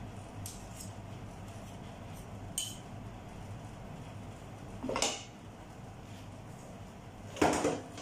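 Metal spoons clinking as one spoon scrapes food off the other, a few light clinks, then two louder clatters of metal kitchenware, about five and seven and a half seconds in.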